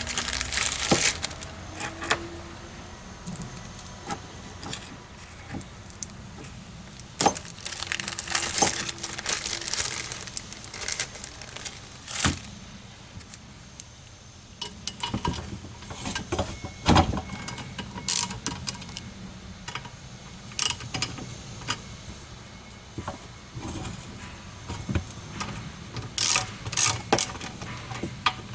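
Small metal parts and tools being handled during engine disassembly: scattered clinks and knocks with short rustling, with a sharp knock about seventeen seconds in.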